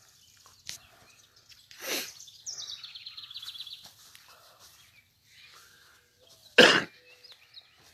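A songbird sings a rapid high trill that steps down in pitch, among other scattered chirps. Near the end a single short, loud burst of noise cuts in, the loudest sound here.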